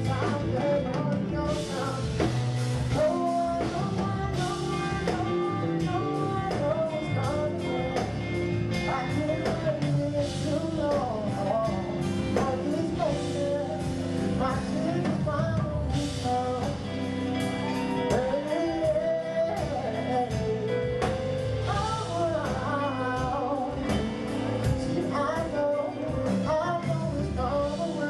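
Live R&B song: a male singer's vocal over a band with electric bass and drum kit, cymbals ringing steadily.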